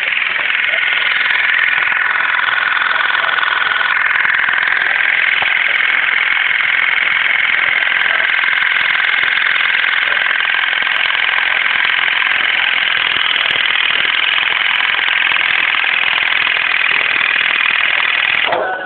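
Daewoo Lanos electric headlight leveling corrector knocking without a break, a steady mechanical buzz and rattle; this knocking is the sign of a faulty corrector. It cuts off suddenly near the end.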